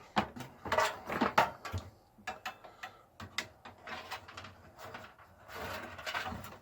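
Hands handling cables and plastic connectors inside a desktop computer case: irregular clicks and taps, with a longer scraping rustle near the end.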